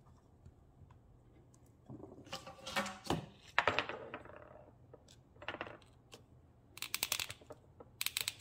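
Small plastic parts being handled by hand: clear airline tubing, an inline check valve and a small air pump, giving rustling and several bursts of quick clicks and rattles, the sharpest near the end.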